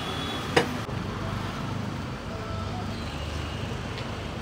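Steady street traffic noise with a low rumble from passing vehicles, and a single sharp click about half a second in.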